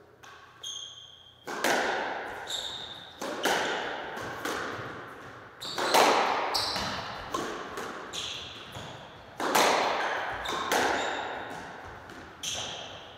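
Squash rally: about a dozen sharp cracks of the ball off racquets and the court walls, roughly one a second, each ringing around the enclosed court. Short high squeaks of shoes on the hardwood floor come between several shots.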